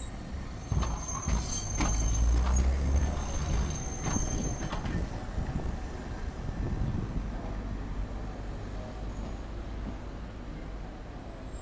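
A Hankai Tramway streetcar passing close: a heavy rumble and several sharp clacks of the wheels over the track joints, with a thin high squeal over it, from about a second in until about five seconds in. After that the street traffic hums steadily while the tram draws up at the platform.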